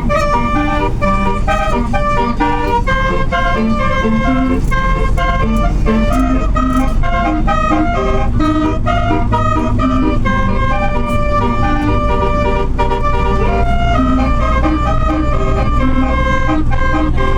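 Basuri telolet bus horn playing a tune in held, stepped notes, over a steady low engine rumble.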